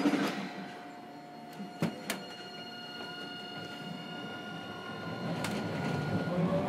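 Inside a Hiroden 3900-series tram refitted with a Toyo Denki SiC inverter, there is a thud at the start and two knocks about two seconds in. A steady whine of several tones follows. Near the end, wheel and motor rumble builds as the tram pulls away and gathers speed.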